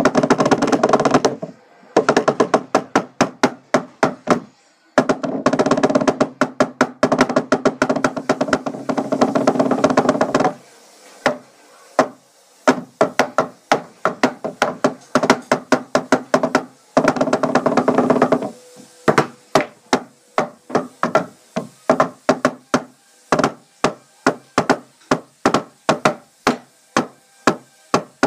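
Drumsticks fitted with Vic Firth rubber practice tips drumming on a wooden table. Fast rolls come in bursts through the first ten seconds and again around seventeen seconds, then give way to single strokes at about three a second.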